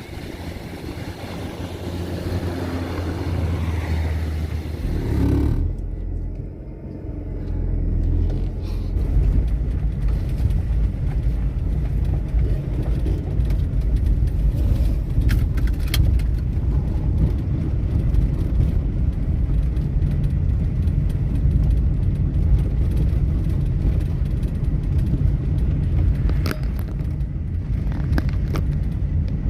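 A car driving: a steady low rumble that becomes deeper and steadier about five seconds in.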